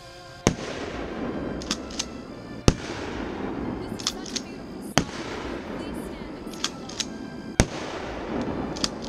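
Shotgun firing Dragon's breath rounds, four shots about two to two and a half seconds apart, each followed by a long crackling tail, with smaller pops in between.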